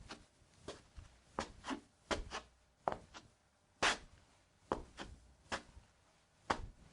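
Footsteps on concrete at a walking pace: sharp, uneven steps, about one to two a second, some landing in close pairs.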